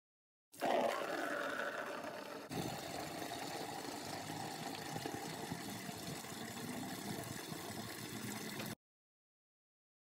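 Garden tap running at full flow into a plastic bucket: a steady rush and splash of water. The sound cuts in abruptly about half a second in, jumps at a splice about two seconds later, and cuts off abruptly near the end. It is played at double speed.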